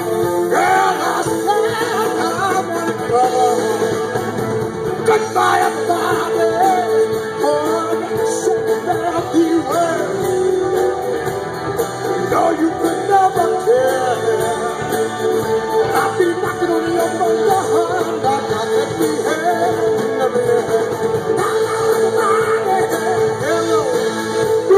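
Live rock band playing: electric guitars over a drum kit, with a man singing lead.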